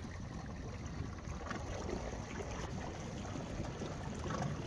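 Steady outdoor ambience of wind buffeting the microphone over small waves lapping on a choppy pond.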